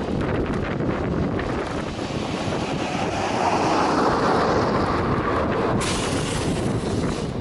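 Storm wind buffeting the microphone as a steady rushing noise. It swells through the middle, and a sharper hiss comes in suddenly near the end.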